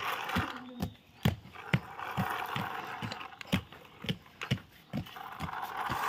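Plastic toy dump truck rolling over rough concrete: a gritty rolling rasp that comes and goes, with regular clicks from the wheels about twice a second.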